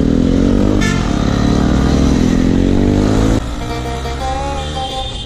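Motorcycle engine with an aftermarket exhaust accelerating, its pitch rising, dipping briefly at a gear change about a second in, then rising again. About three and a half seconds in it gives way abruptly to background music.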